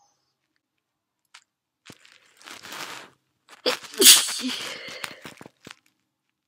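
A person's wet sneeze: a breathy in-breath, then the sneeze bursts out loudly about four seconds in and dies away over about a second and a half.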